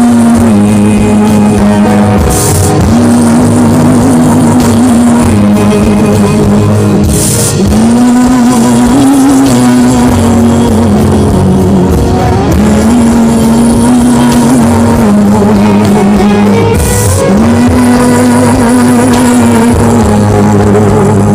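Instrumental worship music. A held, wavering lead melody comes in phrases of about four seconds over a steady low accompaniment, with a brief hissy swell every few seconds.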